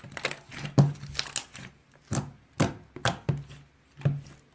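Slime being played with by hand, making a run of irregular clicks and pops.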